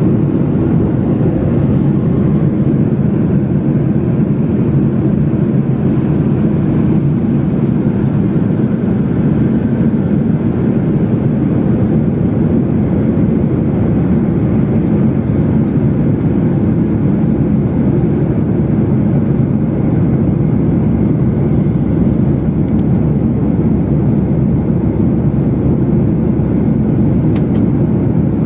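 Steady low rumble inside a jet airliner's cabin in cruise, engine and airflow noise.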